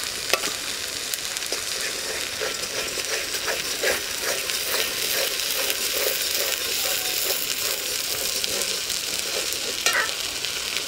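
Spice paste (onion, garlic and ginger) sizzling steadily in hot mustard oil in an aluminium karahi, stirred with a metal spoon that scrapes against the pan, with a sharper knock of the spoon near the end.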